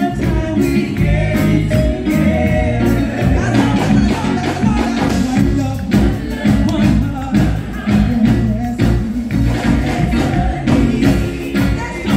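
A live gospel band of drum kit, electric bass and keyboard plays under a group of singers. The singers hold long notes over a steady drum beat.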